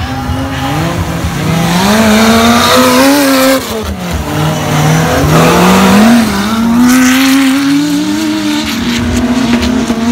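Off-road 4x4 race vehicles' engines revving hard under full throttle. The engine pitch climbs and drops repeatedly, with a sharp dip about three and a half seconds in, over a rough noisy wash.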